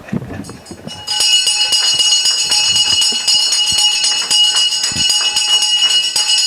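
Ceremonial bell rung continuously, its clapper striking rapidly; the ringing starts about a second in and keeps going.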